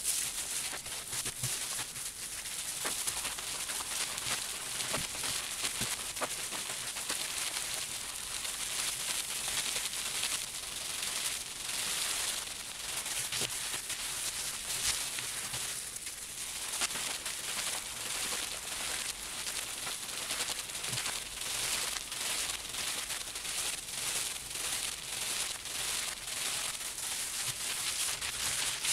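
Gloved hands rubbing and kneading a soapy, wet wool felt slipper against bubble wrap to full and shrink the felt: a hissing wet rub with plastic crinkle in quick, repeated strokes, which settle into a steadier rhythm in the second half.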